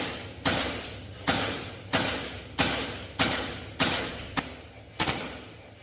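Krytac Kriss Vector gas blowback airsoft gun firing single shots, about seven in a steady rhythm roughly two-thirds of a second apart, each a sharp crack with a short echoing tail.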